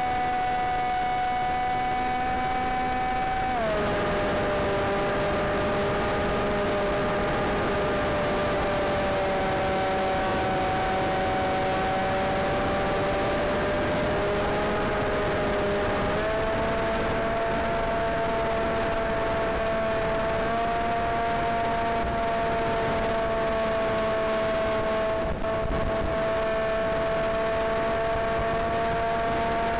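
Electric motor and pusher propeller of a Blade Theory W flying wing in flight: a steady whine over a constant hiss. The whine drops in pitch about three and a half seconds in, as the throttle is eased, and rises partway again about sixteen seconds in.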